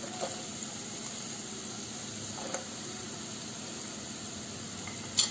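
Tomato-onion masala sizzling gently in a non-stick kadai, a steady low hiss, with a few faint ticks as cut green beans are dropped in.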